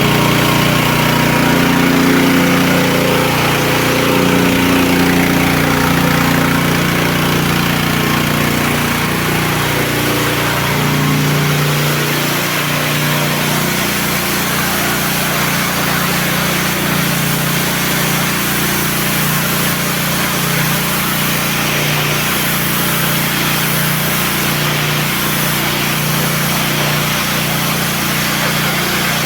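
Professional high-pressure washer running: its motor and pump hum steadily under a continuous hiss. The hum wavers for the first dozen seconds, then settles to an even pitch.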